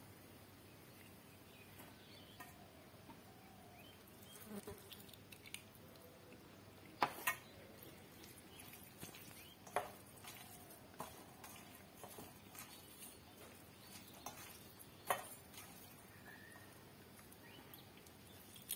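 Fingers mixing rice with fish curry in a steel bowl: faint soft squishing with scattered sharp clicks against the bowl, the loudest a pair about seven seconds in and one near fifteen seconds.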